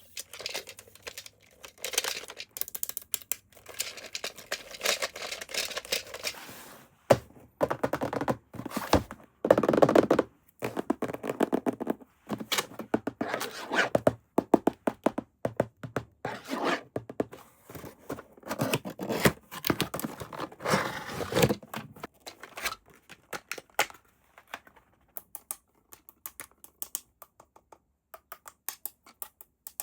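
Toy packaging and a plastic toy being handled and unpacked by hand: irregular rustling, scraping and knocking, giving way in the last third to scattered sharp clicks.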